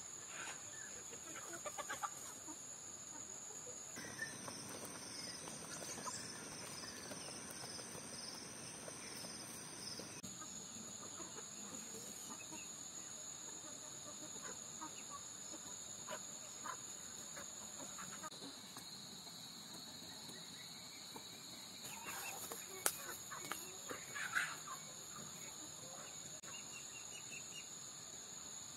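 A flock of brown hens clucking softly as they peck at scattered feed, over a steady high insect buzz. There are a few louder sharp sounds about two-thirds of the way through.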